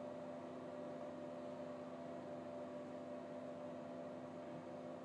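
Faint steady electrical hum over a low hiss: room tone with no singing.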